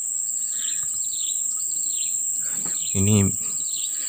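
Steady high-pitched insect drone, with a bird chirping over it in a string of short falling notes about twice a second.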